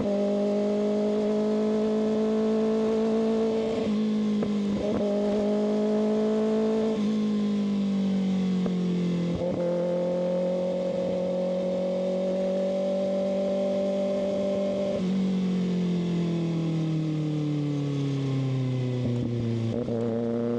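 Kawasaki ZX-6R's inline-four engine under way, running at fairly steady revs with a few brief dips. Over the last five seconds the revs fall steadily.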